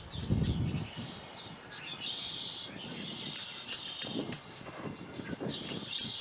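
Small birds chirping repeatedly. A short low rumble comes about half a second in, and softer low rumbling around four to five seconds.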